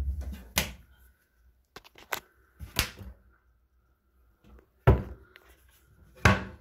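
Kitchen wall-cabinet doors being opened and closed by hand: a low thump at the start, then a series of sharp knocks and clacks with small clicks between them.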